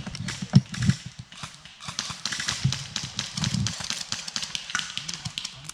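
Footsteps of a player moving over woodland ground, irregular low thuds with many sharp clicks and knocks of gear and twigs.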